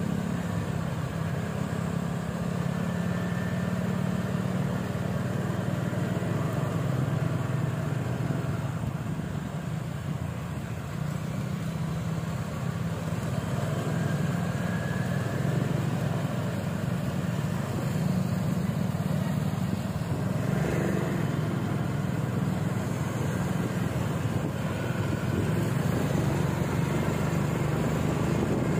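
A motor vehicle engine running steadily, a continuous low drone with no let-up.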